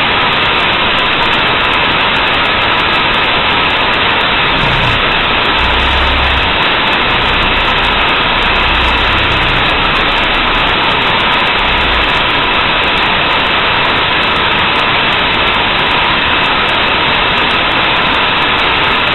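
Loud, steady hiss of MATLAB-generated Gaussian white noise (variance setting 0.2) added to a recorded voice clip and drowning it, played back at an 8192 Hz sample rate so nothing is heard above about 4 kHz. It starts and stops abruptly.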